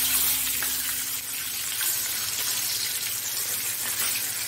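Water poured into a pan of hot oil tempering with mustard seeds and green chillies, sizzling and bubbling with a steady hiss.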